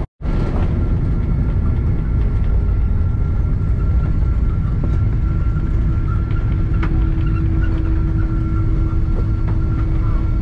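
Jet airliner engines heard from inside the cabin while the plane is on the ground: a loud, steady rumble with a faint high whine. A lower steady hum joins about halfway through. There is a moment's silence at the very start.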